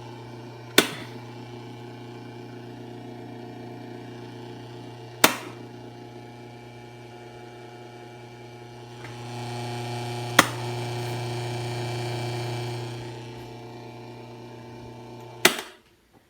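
Asahi LS 6004 electric fan running with a steady electrical buzz and rattle, the noise fault it has developed. Its switch clicks four times, about five seconds apart. The buzz grows louder for a few seconds in the middle and stops right after the last click.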